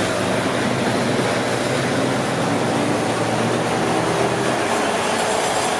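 Diesel passenger train running: a loud, steady rumble with a low engine hum underneath.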